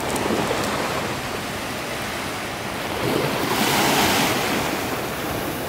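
Small waves lapping and washing up onto a sandy beach, one wash swelling louder about three to four seconds in, with some wind on the microphone.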